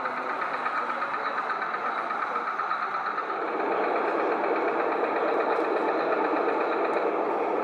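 Diesel engine sound from a sound-fitted O gauge model diesel locomotive, running steadily with a knocking beat and getting louder about halfway through.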